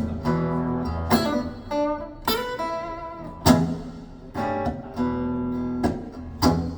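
Recorded music played back over Børresen C1 stand-mount loudspeakers: a guitar passage of chords struck about once a second, each ringing on, with no singing.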